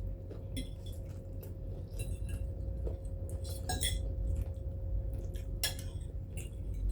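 Cutlery clinking and tapping against plates and dishes during a meal: scattered light clicks, a little louder near the middle and just before the end, over a steady low hum.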